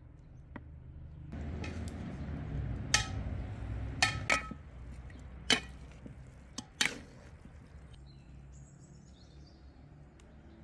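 A metal spatula stirring lamb pieces and sliced onions in a large aluminium pot: a rustling, scraping stir starts about a second in, with about five sharp clinks of metal on the pot in the middle. It goes quieter near the end.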